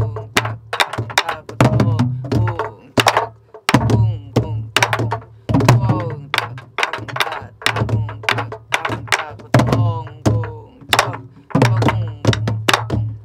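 A group of sori-buk barrel drums played together in a pansori drum rhythm, with hollow palm strokes on the drumheads and sharp stick strokes on the wooden shell, about one to two strokes a second. Voices sing along between the strokes.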